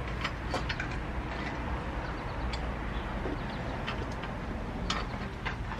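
Scattered light clicks and taps of metal parts as a dirt bike's rear wheel is shifted to line up its axle, over a steady low rumble.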